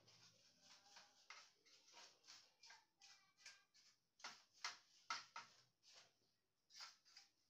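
Faint, irregular clicks, taps and light scrapes of small plastic and metal printer parts being handled during disassembly, with a louder cluster of taps about four to five seconds in.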